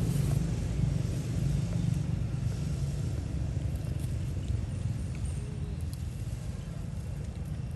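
Low steady rumble of a vehicle engine running nearby, easing off after about three seconds.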